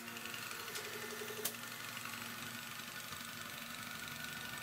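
Freezer compressor driven by a 12-volt DC motor, running steadily under power from a 12 V supply. Two sharp knocks, one at the start and one about a second and a half in.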